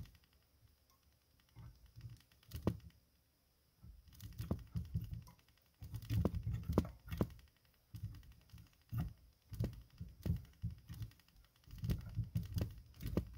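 Soft, irregular handling noises from hands working at a fly-tying vise: low thumps, rustles and small clicks as yarn is twisted tight and wrapped onto the hook.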